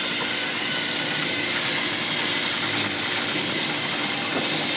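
Several battery-powered TrackMaster toy trains running together on plastic track: a steady whir of small electric motors and gears.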